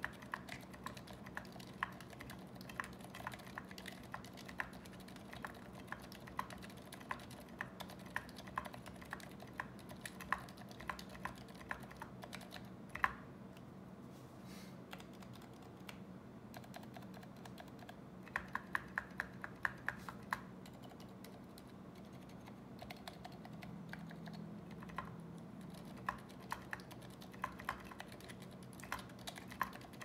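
Typing on a custom aluminium ZealPC Zephyr keyboard fitted with lubed Zilent 65g silent tactile switches on a brass plate, under MT3 Godspeed keycaps: quiet keystrokes in runs. There is one louder stroke just before a pause of a few seconds about midway, then the typing picks up again.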